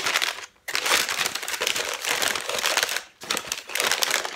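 Thin white wrapping crinkling and rustling loudly as it is crumpled and pulled open by hand, with two short pauses, about half a second in and after three seconds.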